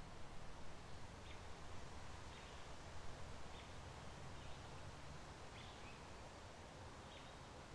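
Steady, soft wash of a flowing spring creek with a low rumble beneath it, and a few faint, short bird chirps scattered through.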